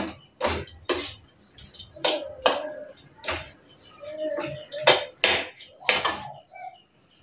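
Metal spatula stirring sabudana khichdi in a kadhai: a series of short scrapes and knocks against the pan, about eight, some ringing briefly, stopping near the end.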